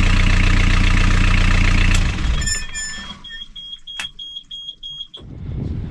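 Beta Marine 35 three-cylinder marine diesel running steadily in its engine compartment, then shutting down about two seconds in. After it stops, an alarm buzzer beeps high and evenly, about three beeps a second, for roughly two seconds, then stops.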